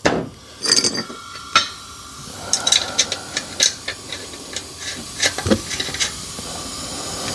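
Irregular light clicks and knocks as a spindle cover and its metal clip are worked into place by hand over a blade spindle on a John Deere Accel Deep 42 mower deck, with one heavier knock near the end.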